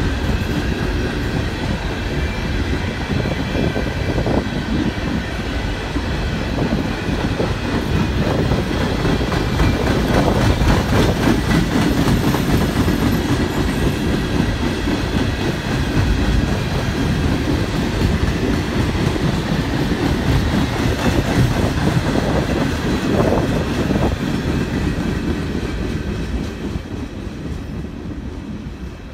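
Freight train coal cars rolling past close by, steel wheels running on the rails in a continuous rumble. The sound eases off over the last few seconds as the end of the train passes and moves away.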